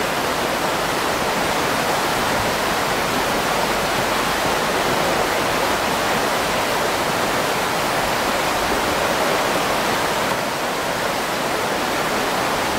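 Whitewater rapids of the Brenta river slalom course rushing steadily.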